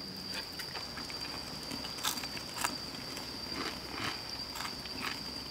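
Steady high-pitched trill of night insects, with scattered light clicks and taps over it, the clearest about two seconds in.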